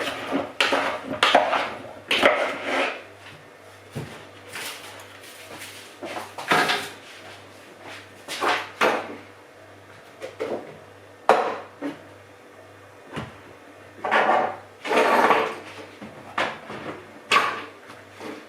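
Kitchen handling noises: irregular scrapes, knocks and clatter of dishes, utensils and drawers being moved, over a faint steady low hum.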